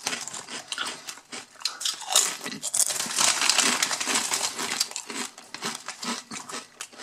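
Foil-lined bag of Blair's Death Rain Jalapeno Cheddar potato chips crinkling and rustling as a hand reaches in and pulls out chips. The crackling is loudest a couple of seconds in.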